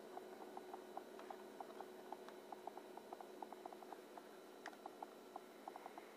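Faint steady high-pitched hum from the electroluminescent gauge panel's inverter transformer, with many short soft ticks at irregular spacing, several a second.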